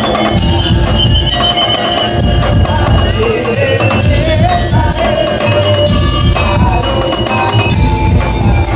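Madurese daul percussion music played loud and continuously: heavy drums and jingling rattles, with a gliding melody line over them.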